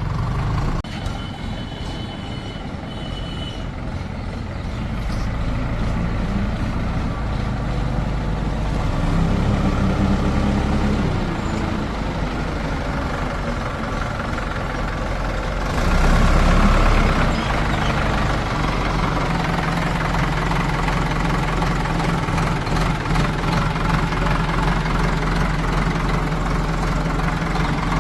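Diesel engines of a backhoe loader and farm tractors running steadily, with the engine revving up about a third of the way in and a louder, harsher surge about halfway through.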